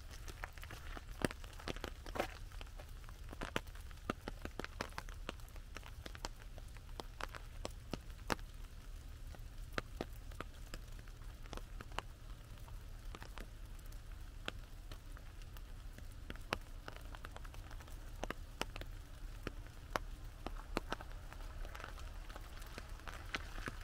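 Raindrops tapping on an umbrella overhead: scattered, irregular sharp ticks, several a second, over a low steady rumble.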